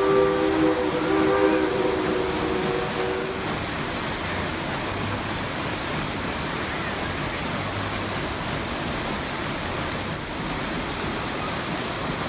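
Steam locomotive's whistle sounding a chord in two blasts, the first ending about a second in and the second running on to about three and a half seconds, over the steady rush of a rocky creek's white-water rapids.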